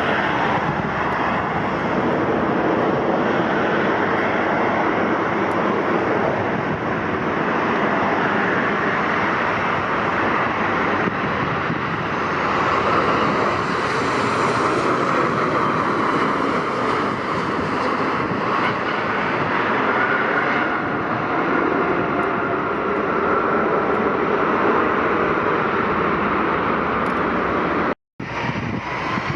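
Airliner engines running loudly and steadily as the plane passes close by, with a whine that rises and then falls about halfway through. The sound cuts out briefly near the end.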